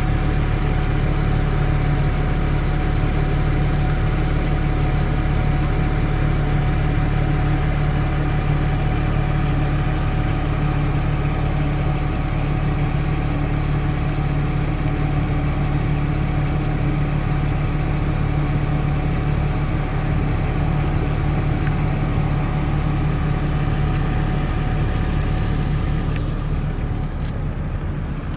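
BMW 320i (E46) straight-six petrol engine idling steadily, heard from underneath the car near the exhaust; it eases off slightly near the end.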